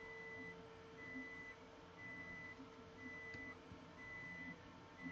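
Faint electronic beep repeating about once a second, each beep about half a second long, over a steady low hum.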